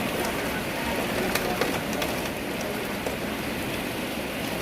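Steady rain falling, with many individual drops tapping sharply on nearby surfaces.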